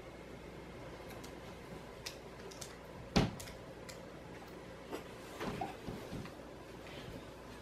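A single sharp thump about three seconds in, then soft rustling of bedding and a few small knocks as someone climbs onto a bed.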